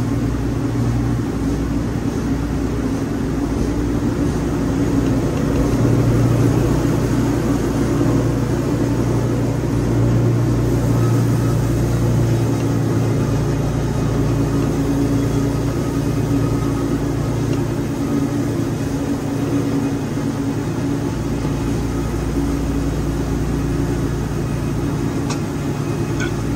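Wood-Mizer LT40 portable band sawmill running steadily through cedar, its engine hum swelling a little a few times.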